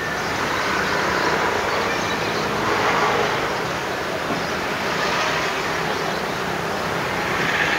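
Passing road traffic: a steady wash of engine and tyre noise from cars and motorbikes, swelling a little now and then.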